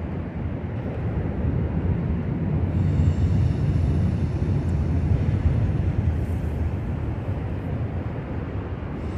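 Freight train of autorack cars rolling past at a distance: a steady low rumble of wheels on rail that swells in the middle, with a faint thin high squeal from about three to six seconds in.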